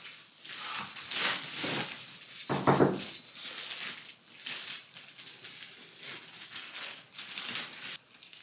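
Plastic poly mailer bags crinkling and rustling as they are handled and pulled out of a cardboard box, in a run of short rustles. About two and a half seconds in comes a brief pitched voice-like sound, the loudest moment.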